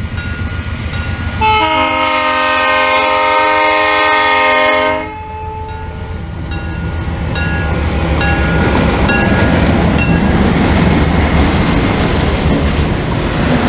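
Diesel locomotive's air horn sounding one long blast of several notes together, starting about a second and a half in after a softer note. A few short ringing notes follow, then the passenger train passes close, its wheels rumbling and clicking on the rails and getting louder.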